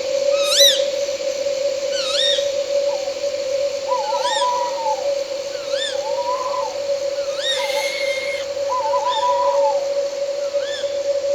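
Night forest ambience: short arched owl calls repeat about every second and a half, with a lower wavering call every few seconds. Under them runs an unbroken steady drone of night insects.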